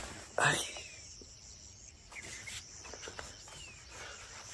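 Quiet rural morning ambience after rain, with a few faint short bird chirps that fall in pitch. A brief rustle of handling noise comes about half a second in.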